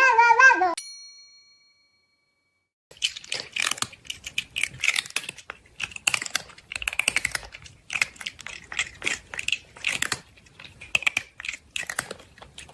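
Rapid irregular clicking in bursts that come and go, like a fast typing or crackling sound effect. It starts after a short ding and a pause of about two seconds.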